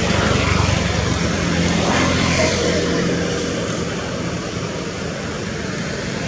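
Steady low engine drone of a motor, running evenly under a broad hiss and easing off a little in the second half.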